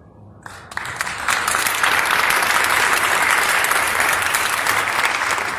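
Audience applauding: a round of many hands clapping that starts about half a second in, swells quickly to full strength and begins to taper near the end.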